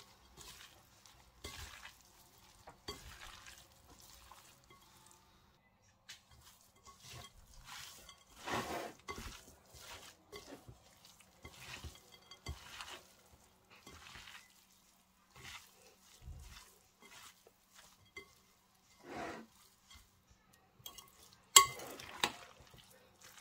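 Quiet, irregular rustling swishes of a gloved hand tossing and squeezing a shredded carrot, taro, tofu and glass-noodle filling in a glass mixing bowl. Near the end a sharp clink, the loudest sound, as a utensil strikes the glass bowl.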